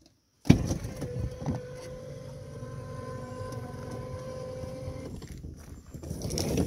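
Truck camper's electric slide-out mechanism running and moving the 8 ft slide-out room, with a steady motor hum. It starts abruptly about half a second in, and its tone changes about five seconds in.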